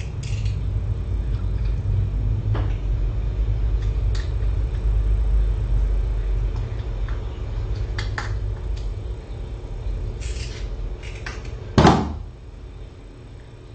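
A steady low rumble with scattered light clicks and knocks, then one loud thump about twelve seconds in, after which the sound drops to a quieter hum.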